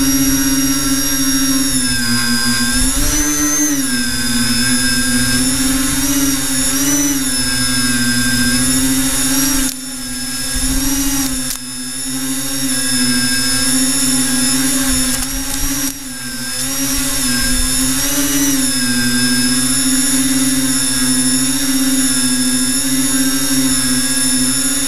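FPV tricopter's electric motors and propellers whining steadily, heard from the camera on board; the pitch rises and falls with the throttle, and the sound drops away briefly a few times near the middle as the throttle is cut.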